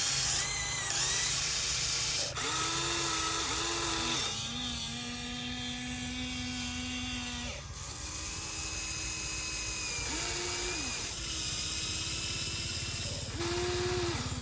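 Electric motors of a radio-controlled excavator whining in short runs, each spinning up and down quickly, with the pitch stepping between levels as different functions are driven. A loud hissing whir runs through the first four seconds or so.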